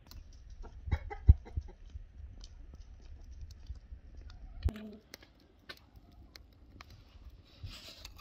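Wood fire crackling in an open metal brazier, with scattered sharp pops and one louder pop about a second in. A short cluck from domestic fowl a little past halfway.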